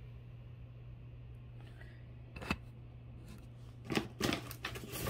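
Faint clicks and clinks of costume jewelry being handled: one click about halfway through and a small cluster near the end, over a low steady hum.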